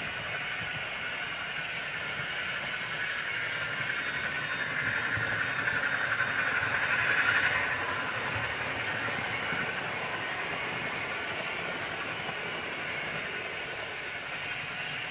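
Model trains running on a layout: a steady whirr of small motors and wheels on the rails, growing louder as a train passes close by about halfway through, then fading back.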